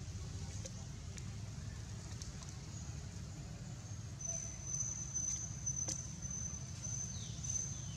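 Outdoor ambience with a steady low rumble. A high, steady insect trill starts about halfway through, with a few faint clicks, and a couple of short falling calls come near the end.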